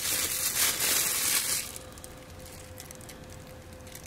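Clear plastic bag crinkling as it is pulled off a small item by hand, stopping about a second and a half in. A faint steady hum runs underneath.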